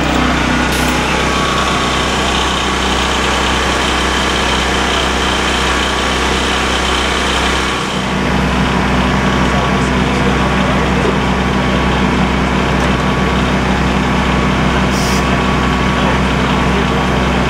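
An engine running steadily as a constant drone, its tone shifting slightly after a brief dip about eight seconds in.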